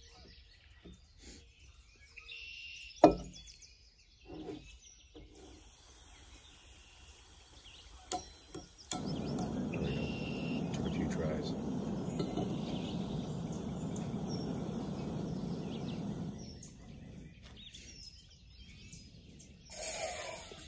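Water poured steadily into a pot for about seven seconds, after a single sharp knock earlier on; birds chirp faintly throughout.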